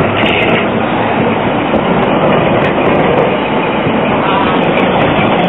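Modern low-floor articulated tram passing close by, a steady, loud rolling noise of its wheels running on the rails.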